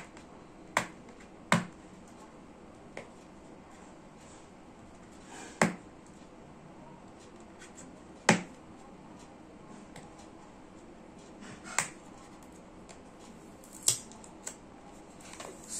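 Fingernails picking at the sealed end flap of a small cardboard earbuds box: about seven sharp clicks and ticks, irregularly spaced, with quiet stretches between.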